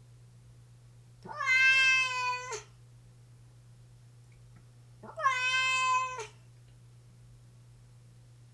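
Long-haired tabby cat meowing twice, each meow drawn out for over a second: the pitch rises quickly at the start and then holds level. The second meow comes about four seconds after the first.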